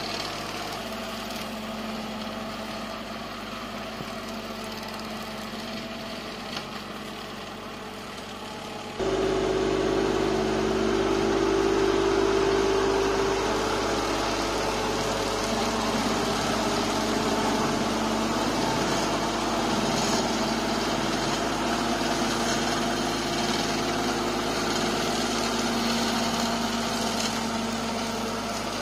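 Engine of a Kubota grass-cutting machine running steadily, with an even mechanical hum. About nine seconds in it suddenly gets louder and stays louder.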